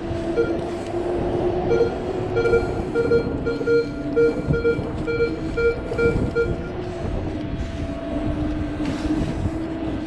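Handheld metal detector beeping at a target as its coil is swept over wet sand: short pitched beeps, about two a second, for the first six seconds or so. Under it runs a steady low hum that wavers slightly in pitch.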